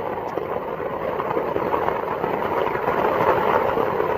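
Heavy downpour pelting a tent's fabric, heard from inside the tent: a loud, dense, unbroken patter of drops, tremendous enough to drown out a voice.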